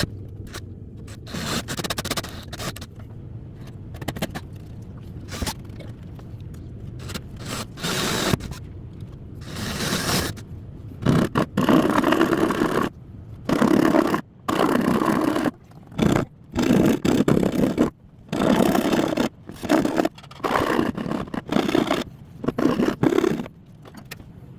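Wood being worked with a hand tool in repeated scraping strokes. The sound is irregular at first, then from about halfway becomes a steady run of loud strokes, each under a second long, cutting the dowel's hole and groove.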